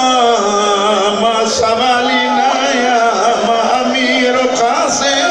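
A man's voice chanting a devotional recitation in a slow, wavering melody, long notes bending up and down, over a steady low tone.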